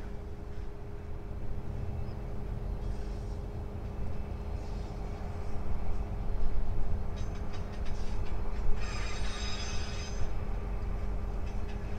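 Diesel locomotives of a narrow-gauge freight train working under load, with a steady low engine rumble and hum. Brief high-pitched squeals come and go over it, the strongest about nine seconds in.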